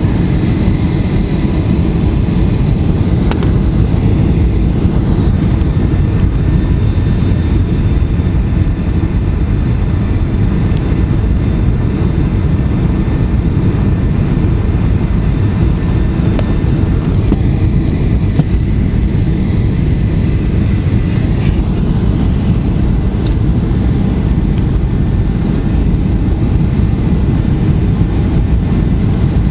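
Steady low rumble of airliner cabin noise, engines and rushing air heard from inside the cabin while the plane descends to land.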